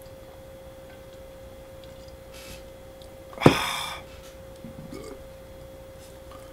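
A steady high-pitched hum runs throughout. About three and a half seconds in there is one sharp knock followed by a half-second rush of noise, the loudest sound. Fainter small noises come before and after it.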